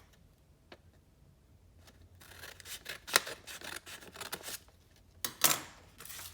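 Scissors cutting through a folded sheet of printer paper. The cutting starts about two seconds in, and there is a louder burst of cutting noise near the end.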